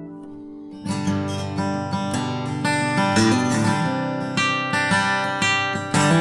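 M-tunes MTF168C cutaway acoustic guitar, spruce top with linden back and sides, played unamplified and recorded without sound correction. A ringing chord dies away, then just under a second in the playing starts again with a run of picked and strummed chords.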